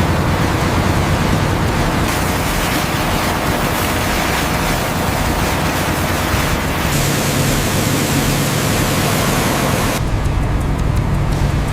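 Loud rushing, churning water over a steady low engine drone, its character changing abruptly a few times.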